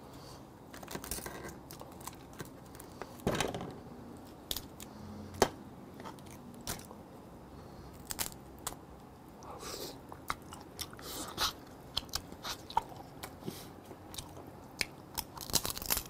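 Close-miked eating of steamed blue crab: scattered sharp cracks and crunches as the shell of the legs is bitten and broken, with wet chewing in between. The loudest cracks come about 3 seconds in and again about 5 seconds in.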